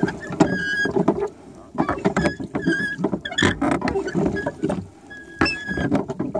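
Gusty wind buffeting the microphone with uneven rumbling and knocking, and short high whistled notes sounding over it several times.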